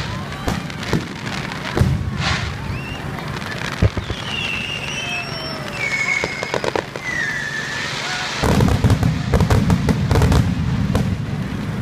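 Aerial fireworks bursting with scattered sharp bangs, then a rapid volley of crackling reports for a few seconds before the end.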